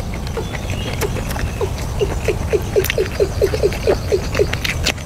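Close-up chewing and lip-smacking with wet clicks, and a run of short pitched squeaks repeating about four times a second through the middle.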